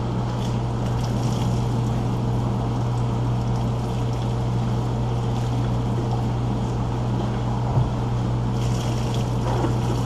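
Water poured from a plastic coffee container over a wet dog standing in a utility sink, trickling and splashing into the tub, under a steady low machine hum.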